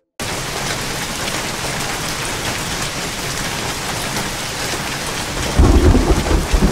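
Heavy rain pouring steadily, starting suddenly just after a moment of silence. About five and a half seconds in, a loud low rumble of thunder joins it.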